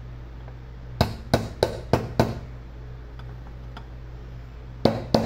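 A hammer striking a long brass punch to drive the outer grease seal into a wheel hub: five quick metallic taps about a second in, then two more near the end, over a steady low hum.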